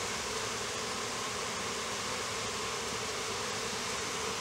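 Steady buzzing of a honeybee colony in an opened hive box.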